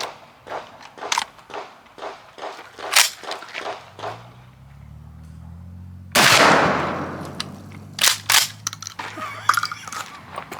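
A single shotgun shot about six seconds in, loud and sharp, dying away over about a second. Light clicks and handling noise come before it, and two sharp clacks follow about two seconds later.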